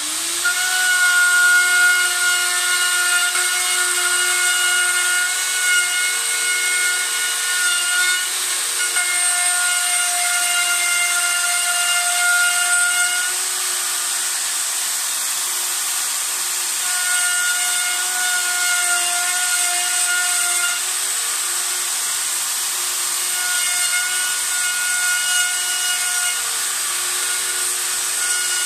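Electric plunge router running at full speed and cutting round the curved end of a laminate worktop along a template, in a first pass about 20 mm deep, half the 40 mm worktop. A steady high whine with the hiss of the cut, its tone shifting slightly now and then as the bit works through the board.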